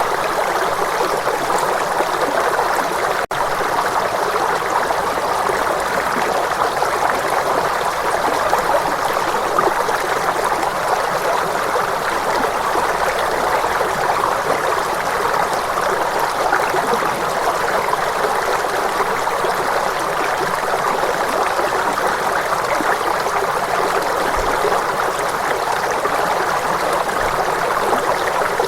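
Steady flow of running water, a continuous even rush, with a brief dropout about three seconds in.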